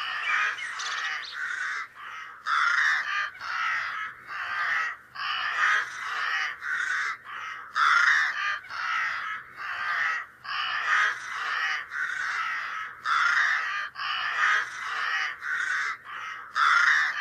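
Crows cawing over and over, harsh calls coming about two a second, cutting off abruptly at the end.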